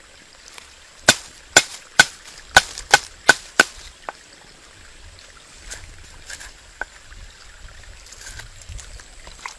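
Large knife chopping lemongrass stalks on a wooden chopping board: seven sharp chops about half a second apart, starting about a second in, then a few softer knocks.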